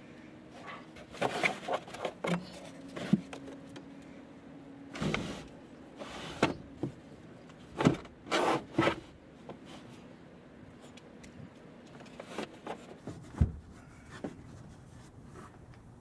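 Irregular knocks, clicks and rustles of handling and movement inside a vehicle's cargo area, most of them in the first nine seconds and a few more near the end. A faint steady hum runs under the first five seconds.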